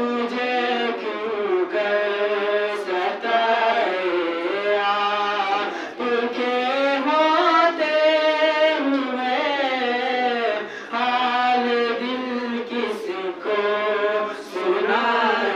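A boy's solo voice chanting a devotional naat, sung in long melodic phrases with gliding pitch and short breaks for breath.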